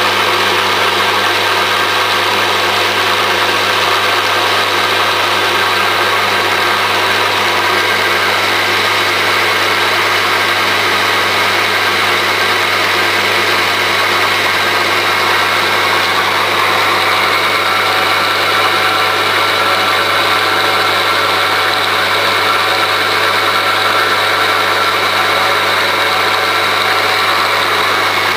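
Motor-driven demonstration rig running steadily, its steel shaft spinning in pillow-block bearings: an even mechanical hum with a steady low tone underneath and no change in speed.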